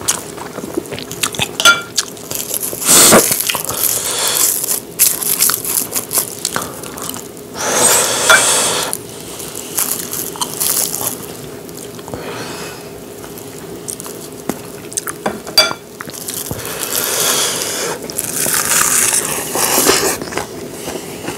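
Close-miked eating sounds from a lapel microphone: sheets of roasted laver crinkling and crunching, a spoon clicking against a ceramic bowl, and wet chewing of rice with spicy stir-fried webfoot octopus wrapped in laver. Sharp clicks are scattered throughout, with several longer stretches of crunching.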